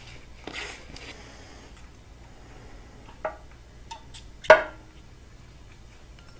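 Metal engine parts clinking and knocking as they are worked loose and handled on a bare engine block. There is a short scrape about half a second in, a knock at about three seconds, and a louder clank with a brief ring at about four and a half seconds.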